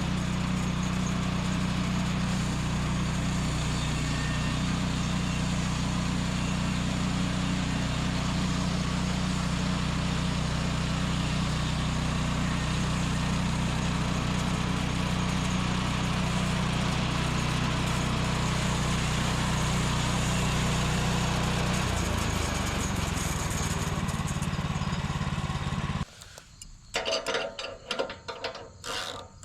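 Kohler 14 horsepower sawmill engine running steadily. Its tone changes about three-quarters of the way through. It cuts off abruptly near the end, followed by a few light mechanical clicks and rattles.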